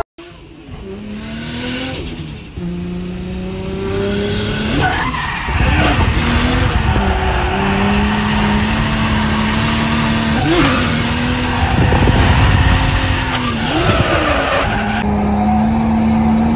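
Nissan 180SX engine running hard, heard from inside the cabin while drifting, its pitch dipping and climbing several times with throttle and shifts, over a steady screech of tyres sliding sideways.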